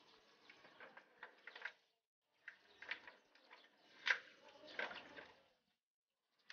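Faint metallic clicking and rattling of a steel mesh gate's lock being handled, with a few sharper knocks in the second half.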